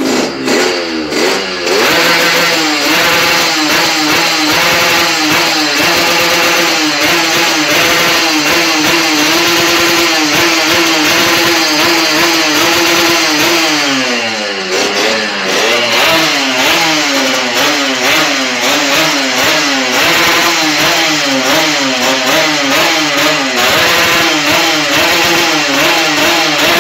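Yamaha RX-King's two-stroke single-cylinder engine revved hard. It is held at a steady high pitch for several seconds, drops away about halfway through, then is blipped up and down repeatedly.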